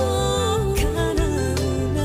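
Pop ballad music: a woman's voice holds a long, slowly gliding note with vibrato over accompaniment with sustained low bass notes.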